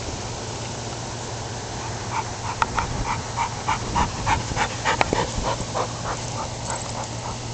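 A dog playing makes a rapid run of short, high-pitched vocal sounds, about three a second, starting about two seconds in and tailing off near the end, with a few sharp clicks among them.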